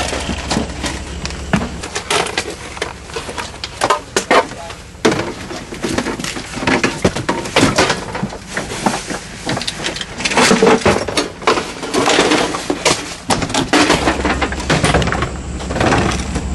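Irregular knocking, clattering and rustling as boxes and gear are handled in the back of a box truck. The truck's engine idles as a low hum, which drops away about two seconds in and comes back near the end.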